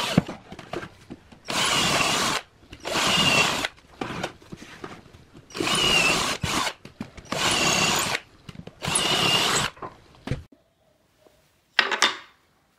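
Cordless drill with a twist bit boring holes through a plywood panel: five short runs of about a second each, with a high motor whine, a pause between them. After a quiet stretch comes one brief noise near the end.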